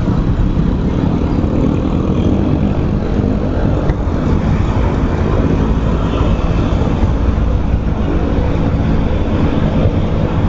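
Motorcycle engine running steadily while riding, under a heavy, even wind rumble on the microphone.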